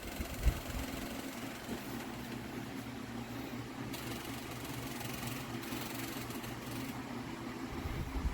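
Electric wall fan running steadily: a low motor hum under an even rush of air. There is a single short knock about half a second in.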